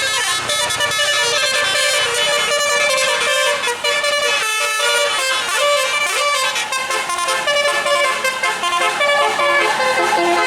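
A bus's roof-mounted musical air horns (telolet, Basuri style) playing a tune, a run of changing held notes with several tones sounding at once.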